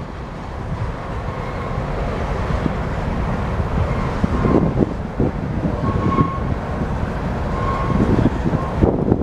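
Freight train of tank cars rolling over a steel railway bridge: a steady rumble and clatter of wheels on rails, with a few brief faint squeals.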